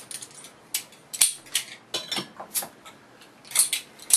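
Irregular sharp metallic clicks and clinks of a beer bottle being handled and opened, about a dozen in all, the loudest about a second in and at the very end.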